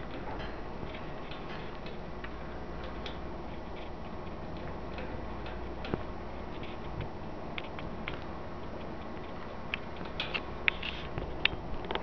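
Budgies' small beak clicks and ticks during preening and beak-to-beak feeding, over a steady background hiss; a quick cluster of sharper clicks comes near the end.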